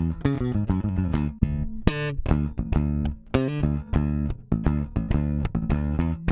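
Bass guitar playing a line of plucked notes, several a second, compressed through a dbx 160A hardware compressor.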